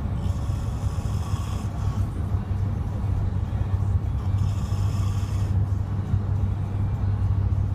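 A person snoring in a car, two long snoring breaths about four seconds apart over the car's steady low hum.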